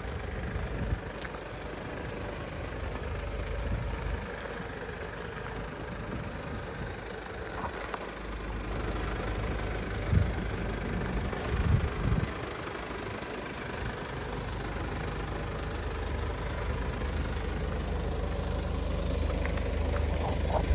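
Mercedes Vito van's engine running steadily at idle, a low hum, with a few short knocks about ten and twelve seconds in.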